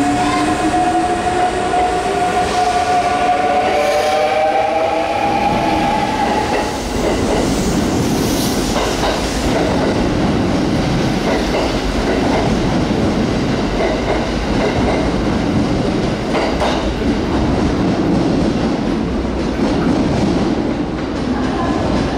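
Electric train gathering speed. Its motors whine in tones that climb in pitch for about the first six seconds, then give way to a steady rumble of wheels on rail with the clickety-clack of rail joints.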